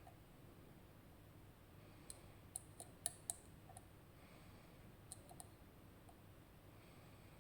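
Lock pick working pin 2 inside a RUKO Garant high-security cylinder with gin spool drivers: a quick run of small, sharp metallic clicks about two seconds in, and a few more about five seconds in.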